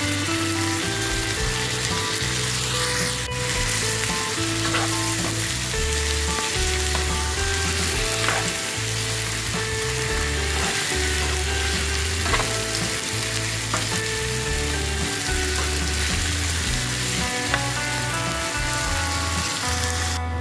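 Chicken wings sizzling steadily in hot oil with onions in a wok as they are browned for adobo. A utensil turning them gives a few sharp clicks and knocks against the pan. Background music plays underneath.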